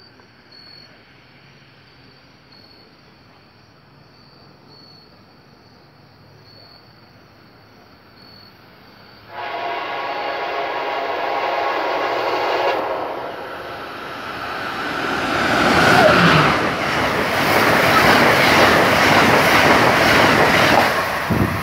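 Insects chirp faintly until an approaching Amtrak passenger train sounds one long horn blast of about three and a half seconds. The noise of the train then rises to a loud rushing clatter as it passes through the station at speed.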